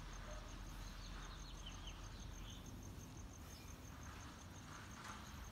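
Quiet backyard ambience: an insect, likely a cricket, chirping steadily in an even high-pitched pulse, with a few faint short chirps about a second in over a low background rumble.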